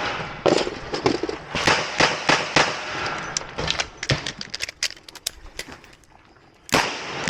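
Shots from a Ruger GP100 Match Champion revolver firing .38 Special: several loud shots in quick succession over the first few seconds, then a stretch of lighter, quicker clicks, and another shot near the end.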